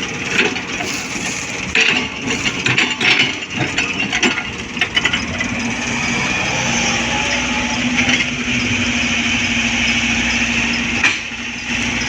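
Excavator engine running while soil and stones are moved, with irregular knocks and crackles for the first six seconds or so. Then a steady engine drone, with a brief dip near the end.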